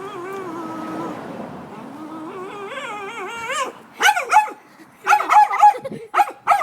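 Excited dog whining, a long wavering high whine for the first three and a half seconds, then breaking into a run of loud, short yelping barks.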